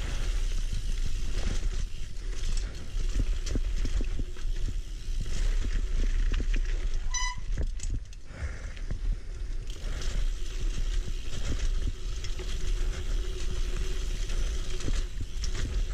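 Single-speed mountain bike (Fetish Cycles Fixation) riding singletrack: a steady low rumble with frequent short rattles and clicks from the bike on rough ground. A brief high beep-like tone sounds about seven seconds in.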